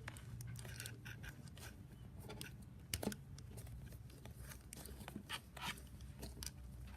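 Faint handling noises from a soft foam squishy toy being squeezed and turned in the fingers: scattered light rubs, scratches and rustles, with a small click about three seconds in.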